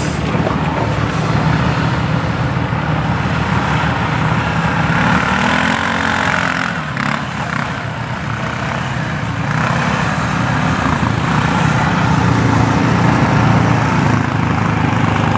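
Off-road vehicle's engine running steadily while driving, with a drone of engine tones and a haze of road and tyre noise above it; it eases off briefly about halfway through, then picks up again.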